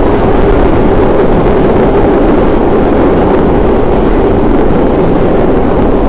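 Vintage R1/9 subway car running at speed, heard from on board: a loud, steady rumble of wheels on rail and running gear with no let-up.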